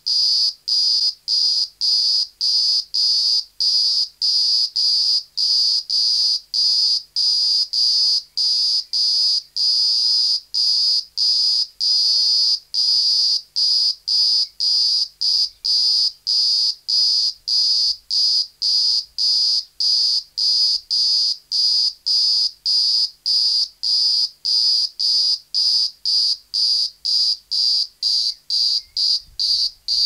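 Green grocer cicada calling: a loud, shrill buzz pulsing steadily at about two pulses a second.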